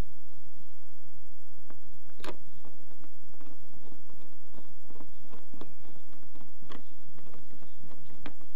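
Scattered small clicks and taps of a screw and washer being handled on a Phillips screwdriver's tip, over a steady low rumble.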